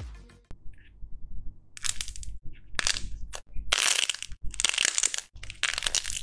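Thick slime squeezed and stretched by hand, crackling and popping in irregular bursts from about two seconds in. The tail of electronic intro music fades out at the very start.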